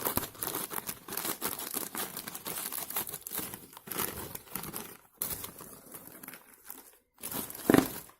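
Plastic snack packet crinkling and tearing as it is ripped open and its contents handled: a dense run of crackles with short pauses and a louder crackle near the end.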